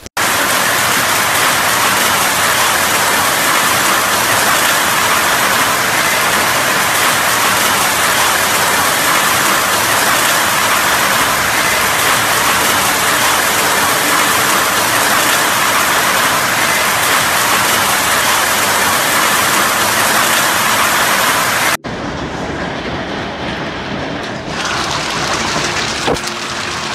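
Heavy hail pelting down, a loud, dense, steady clatter of hailstones striking the ground and surfaces. About 22 seconds in it cuts abruptly to a quieter stretch of falling hail.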